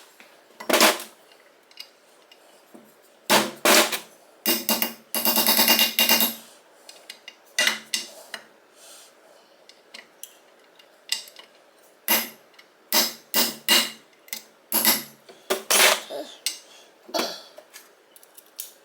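Hand tools clinking and knocking against the metal parts of a motorcycle engine's gearbox while the shift fork's locking bolt is undone, with a run of rapid clicks about five seconds in.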